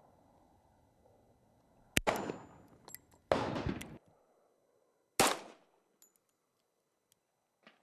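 Colt Gunsite 1911 pistol in .45 ACP firing three single shots, about two, three and a quarter, and five seconds in, each with a short ringing tail. A few faint clicks follow the shots.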